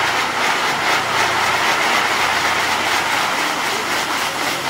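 Fireworks on a castillo firework tower burning with a loud, steady rushing hiss as its spinning wheels throw sparks.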